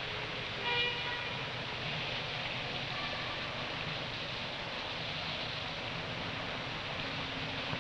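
A train horn sounds once briefly, just under a second in, then the steady rushing rumble of a train running by.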